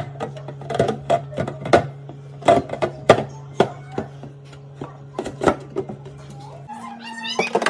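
Background music: plucked string notes over a held low tone, which shifts higher near the end.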